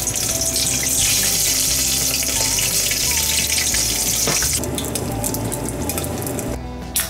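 Small whole shrimp deep-frying in a pot of hot oil, a loud steady sizzle that drops off sharply about four and a half seconds in.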